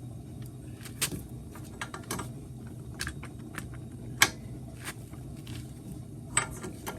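Irregular sharp metal clinks and clanks of a 36 mm socket and breaker bar being worked on a tight front axle nut, about one a second, the loudest about four seconds in, over a steady low hum.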